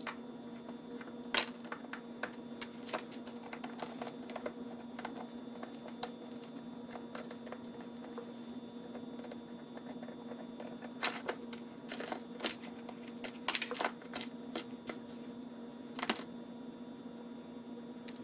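Irregular small metal clicks and taps as an outboard carburetor is taken apart by hand with tools, over a steady low hum.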